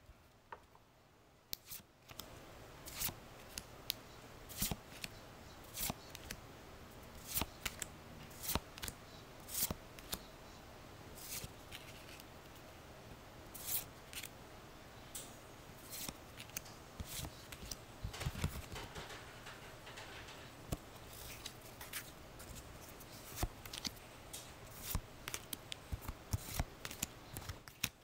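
Pokémon trading cards being handled and slid one by one through a stack of cards in the hand: a string of short, crisp papery swishes and flicks, irregular, about one or two a second.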